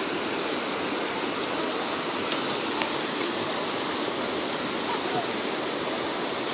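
River water rushing steadily through a rocky gorge, a constant loud hiss with no break.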